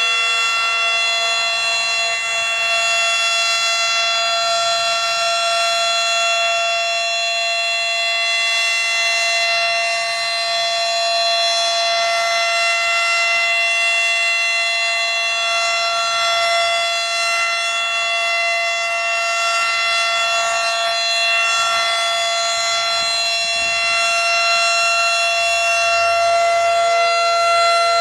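Model 5 outdoor warning siren sounding during a test, holding one steady, loud tone at full pitch.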